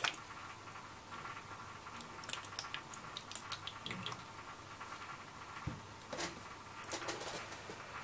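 Faint trickle and drips of water poured from a plastic bottle into a small clear plastic compass case, with scattered light ticks, a soft knock and a few clicks later on as the bottle and case are handled.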